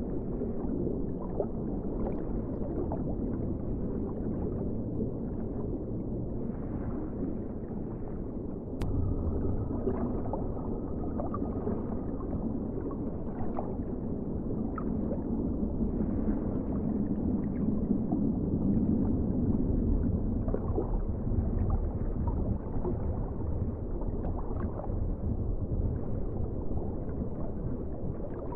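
Underwater ocean ambience: a steady, muffled low rumble of water with scattered bubbling and gurgling, growing louder about nine seconds in.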